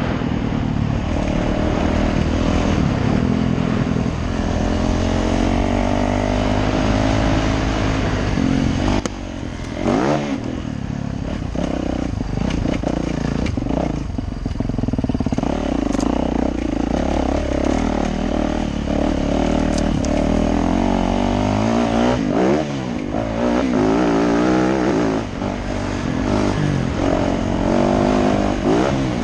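Yamaha YZ450F dirt bike's single-cylinder four-stroke engine under way, revving up and easing off again and again as it is ridden along a rough trail, with a brief drop off the throttle about nine seconds in and sharp rises in pitch soon after and again near twenty-two seconds in. Heard from a helmet-mounted camera, with wind and rattling mixed in.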